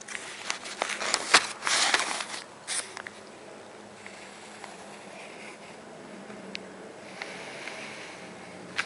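Handling noise: rustles and a few knocks in the first three seconds as the paper and drawing hand are repositioned, then quieter faint scratching of a pencil drawing lines on paper.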